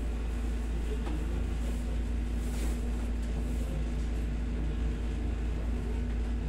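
Steady low hum and rumble of a room air-conditioning unit, with a brief rustle about two and a half seconds in.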